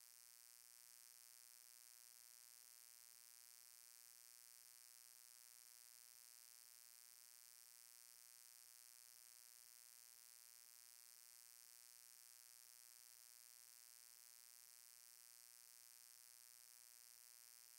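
Near silence: a faint, steady electronic hiss and hum with no other sounds.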